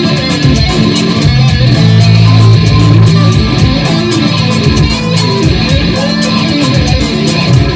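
Electric guitar played through an ENO effects stomp box: a run of quick picked notes, with a held low note about two seconds in.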